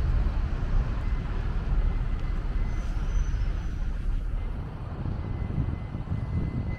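Road traffic on a city avenue: a steady rumble of passing cars that eases off about four and a half seconds in.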